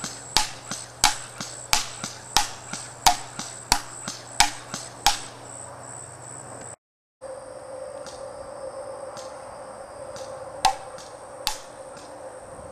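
Echo 1 G36C airsoft electric rifle firing on semi-auto, a sharp shot about every two-thirds of a second, eight in a row. After a brief break the shooting resumes with two more shots over a steady high insect buzz.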